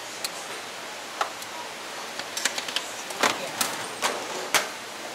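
Stainless steel pot, steamer tier and metal ladle clinking and knocking together as a vendor scoops from the pot and sets the steamer back on, a run of sharp metal clinks that are loudest in the second half, over a steady background hiss.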